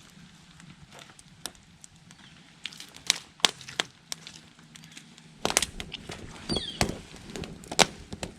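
Sharp woody cracks and snaps: a few loud single ones about three seconds in, then a dense cluster of them with low knocks in the second half, as kindling wood is handled and broken while a fire is being started.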